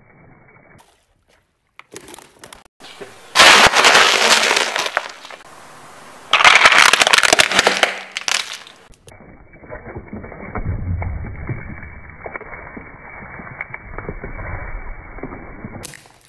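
A car tyre rolling over and crushing small objects: crunching and cracking. Two loud bursts of crushing come about three and six seconds in, then a quieter, duller crackling rumble runs for the last several seconds.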